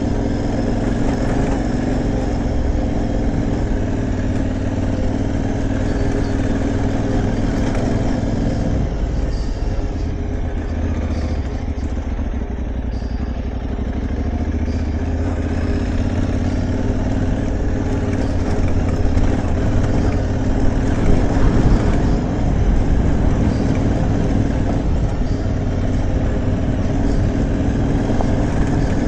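Aprilia Tuareg 660's parallel-twin engine running under way off-road. The engine note dips about nine seconds in, then builds again and is loudest around twenty seconds in.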